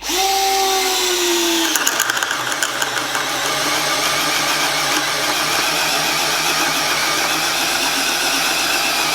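Bosch Professional 12 V cordless drill driver in low gear boring a 25 mm spade bit into wood. The motor's whine drops in pitch as the bit bites, about two seconds in, then the drill runs under heavy, steady load with a rattle from the cutting. It is straining but still cutting, "not very happy".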